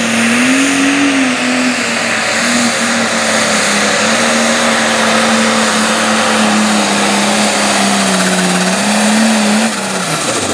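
International 1066 Light Pro Stock pulling tractor's turbocharged diesel engine running flat out under load while dragging the sled, its note wavering a little with a thin high turbo whine over it. Near the end the engine drops off and the whine winds down in pitch.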